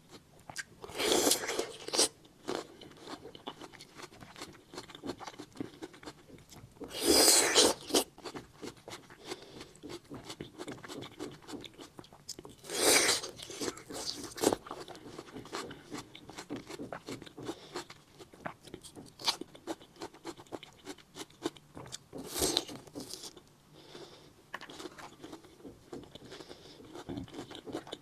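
Close-miked eating of fruit: steady chewing and mouth smacks, with four louder noisy bursts of about a second each, bites or handling of the fruit.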